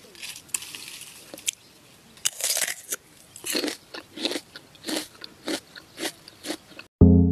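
A person biting into and chewing a crisp fresh fruit close to the microphone, with crunches about every two-thirds of a second. Music cuts in suddenly near the end.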